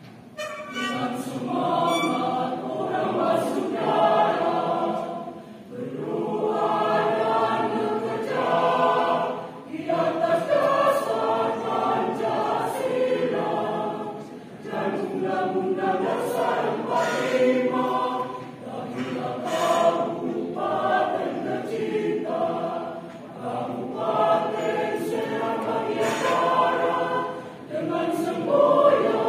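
A mixed choir of men and women sings in parts. The singing starts about half a second in and goes in phrases, with short breaks between them.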